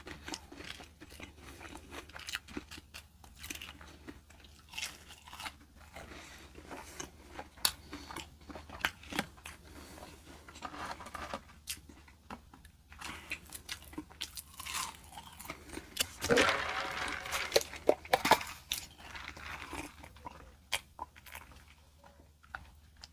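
Close-up eating sounds: crunchy fast food being bitten and chewed, with irregular crackly clicks throughout. A louder stretch of crunching comes about sixteen seconds in.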